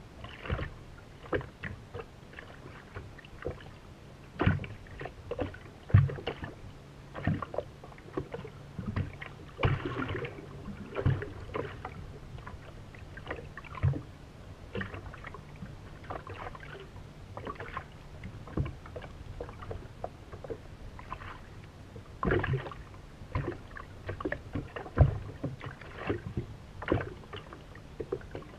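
Water slapping and knocking irregularly against the hull of a racing powerboat sitting on choppy water, over a low steady hum.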